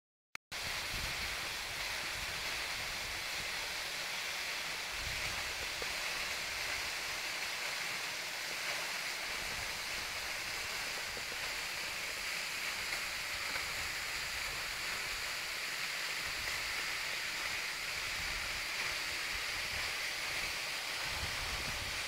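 Waterfall pouring down a rock face into a pool: a steady rushing of water, with irregular low rumbles underneath. It starts suddenly about half a second in.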